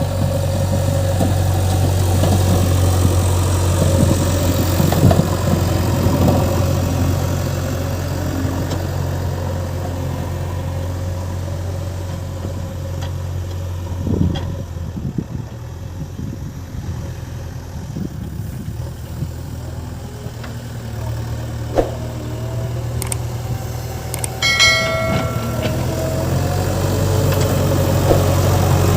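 Diesel engine of a JCB 3DX backhoe loader running steadily with a low hum. A brief pitched tone sounds a few seconds before the end.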